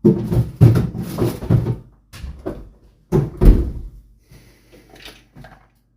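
Knocks and clattering from a food chopper's container being handled: a cluster of knocks in the first two seconds, a loud knock about three seconds in, then lighter clicks.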